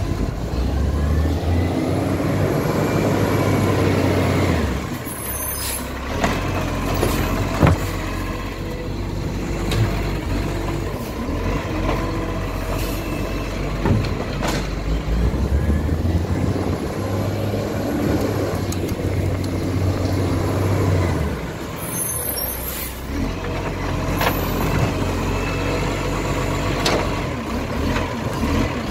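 Iveco side-loader garbage truck's diesel engine pulling away and slowing between bins, with an air-brake hiss each time it stops, twice. Near the end the truck's arm lifts a kerbside bin.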